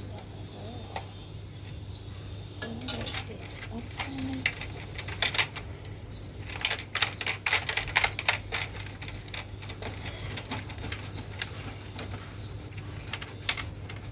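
Irregular light clicks and clattering of small hard objects being handled, busiest in the first half, over a steady low hum.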